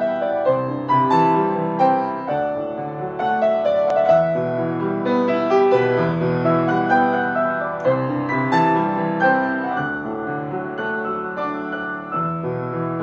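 Piano music: single notes and chords struck one after another, each ringing and fading.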